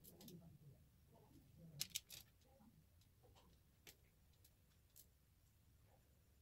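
Faint, scattered clicks of small beads knocking together as hands thread them onto a bracelet, with a quick cluster of louder clicks about two seconds in and a few single ticks after.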